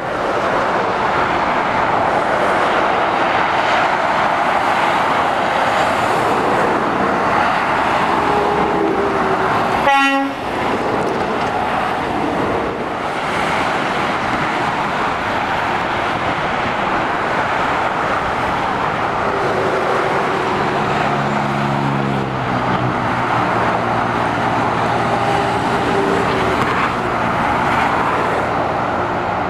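Steady motorway traffic noise from lorries and cars passing, mostly tyre roar. A vehicle horn gives one short toot about ten seconds in. In the second half a lorry's low engine hum comes up under the road noise.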